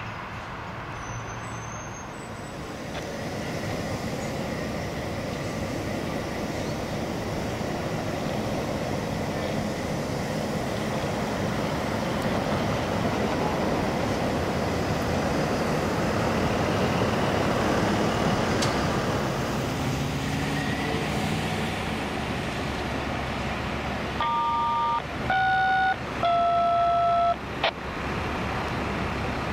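Steady heavy machinery rumble at a track construction site, building over several seconds and then easing off. Near the end come three short horn toots, each a little lower in pitch than the one before.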